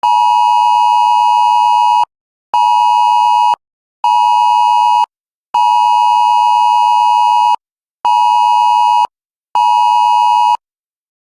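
Wireless Emergency Alert attention tone: a loud two-note beep in the alert cadence of one long and two short tones, sounded twice, warning of a flash flood.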